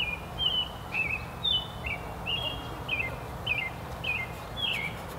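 A songbird singing a continuous string of short whistled notes, about two a second, each note swooping up or down in pitch, over a steady low background rumble.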